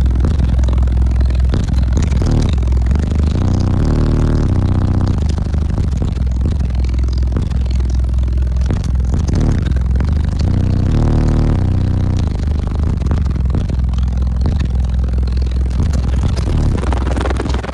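Deep bass notes of a rap track played at extreme volume through twenty-four Crossfire XT3 12-inch subwoofers in a sixth-order enclosure. The low notes are held and change every second or so, and the sound is heavily distorted.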